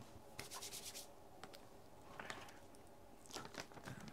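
Faint rustling and rubbing of plastic salami packaging being handled as slices are pulled out, with a quick run of small clicks about half a second in.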